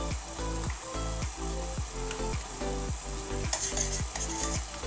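Vegetables in a buttery curry sauce sizzling in a stainless steel saucepan. From about three and a half seconds in, a spoon stirs through the pan with louder scraping.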